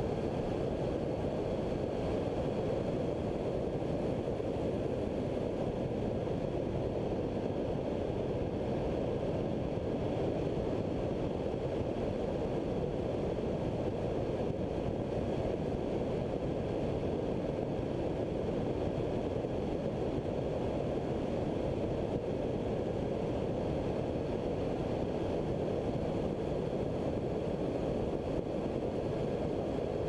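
Steady drone of a flex-wing ultralight trike's engine and pusher propeller in cruising flight, mixed with wind rushing over the microphone, unchanging throughout.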